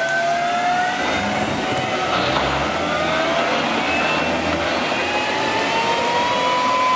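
Tank driving through thick mud: a high whine that climbs slowly in pitch as it pushes on, over a churning rumble.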